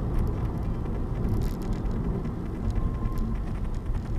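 Steady low rumble of a car driving, road and engine noise inside the cabin picked up by a dashcam microphone.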